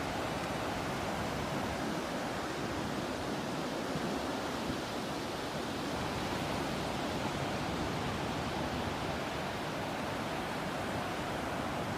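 Ocean surf and breeze as a steady, even wash of noise, with no separate wave breaks or bird calls standing out.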